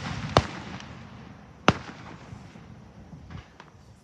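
Aerial fireworks shells bursting: two sharp bangs about a second and a half apart with a lingering rumble after each, then a few small pops near the end.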